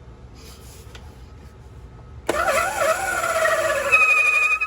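Club Car DS gas golf cart engine cranked over on its starter-generator and trying to start, with the RPM limiter unplugged. The sound comes on suddenly a little over two seconds in, with a whine that wavers and then falls in pitch, a higher steady whine joining near the end, and stops abruptly.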